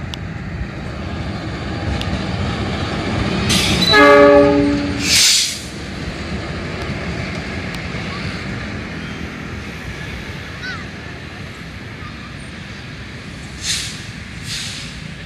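A string of coupled KAI diesel locomotives running light past at close range. The engine rumble builds as they approach, and about four seconds in one horn blast of roughly a second is the loudest sound. The rumble then eases as they pull away, with two brief hissy bursts near the end.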